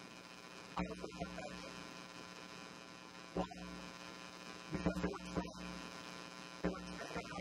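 Steady electrical mains hum, a buzz with many overtones, from the recording or sound system, broken by a few short, louder bursts about every two seconds.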